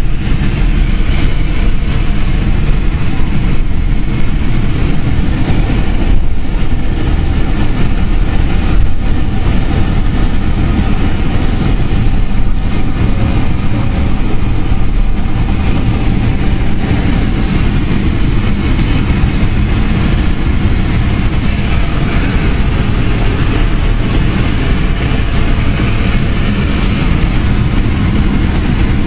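Boeing 767-400 jet engines and airframe noise heard inside the passenger cabin during departure, a loud steady rumble with a hiss above it that swells slightly in the second half.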